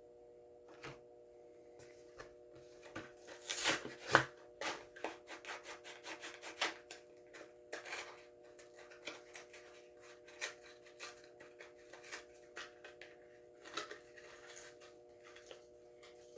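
Hands handling a die-cast toy car and its packaging: scattered irregular clicks, scrapes and rubbing, busiest a few seconds in, over a faint steady hum.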